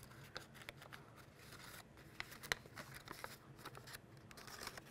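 Faint paper rustling and small clicks as a folded paper cube is worked and pressed together by hand, over a low steady hum.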